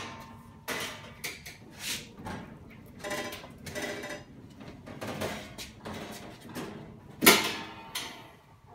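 Stainless steel access door and panels of a mat washer being handled: a string of metal knocks and rattles, some ringing briefly, and a loud ringing clank about seven seconds in as the side door is opened.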